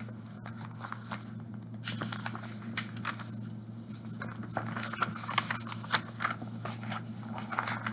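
Objects being handled and shifted on a table: scattered small clicks, taps and scrapes over a steady low hum.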